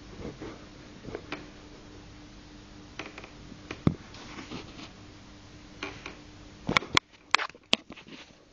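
Scattered light clicks and taps, ending in four sharp clicks in quick succession, over a faint steady hum.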